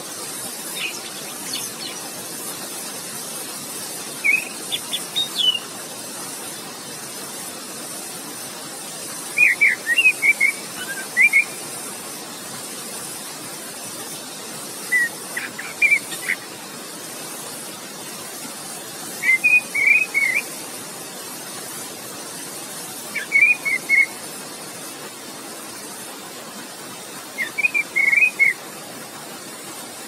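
Orange-headed thrush singing short phrases of quick whistled notes about every four to five seconds, six phrases in all, over the steady rush of flowing water.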